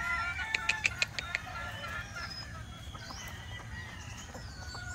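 Gamefowl chickens clucking and calling, with small birds chirping in the background. A quick run of sharp clicks comes about half a second in.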